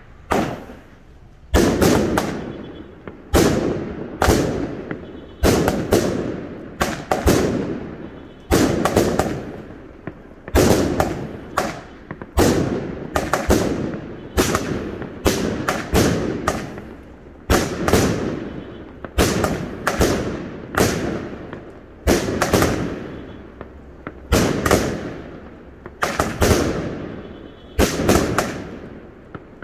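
200-gram consumer firework cakes firing: a steady run of shots, each a launch thump and a sharp breaking report, about one to two a second, each report trailing off in echo.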